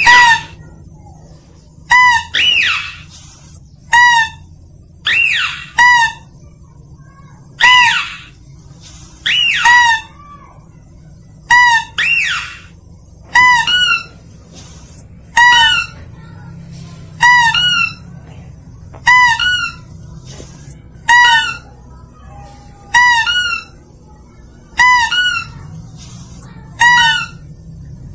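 Mouse-deer (kancil) lure call repeating: short, high squeaky cries, about one every one to two seconds, some drawn out and falling in pitch. It is the sound hunters play to draw mouse-deer in.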